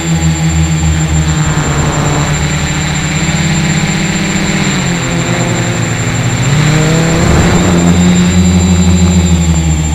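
Small quadcopter's brushless motors and propellers buzzing, heard from the camera mounted on the craft. The pitch dips as the throttle eases off about halfway through, then climbs back up as it powers on again.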